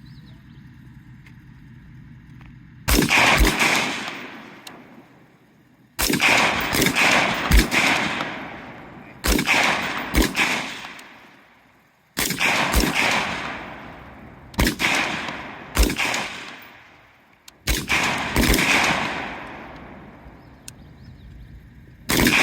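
C7A2 rifles (5.56 mm) firing single shots along a firing line, at an uneven pace from several shooters. The shots start about three seconds in, come in clusters of two to four, and each cluster echoes and fades over a second or two.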